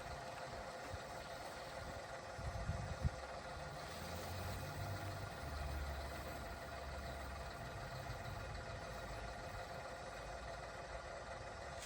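Radio-controlled model construction vehicles running, a steady mechanical hum with low rumbling in the middle and a single sharp knock about three seconds in.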